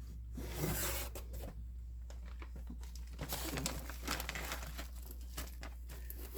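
Plastic and paper packaging of a cross-stitch kit crinkling and rustling as it is handled, loudest in a burst about a second in, then in small scattered rustles and clicks over a low steady hum.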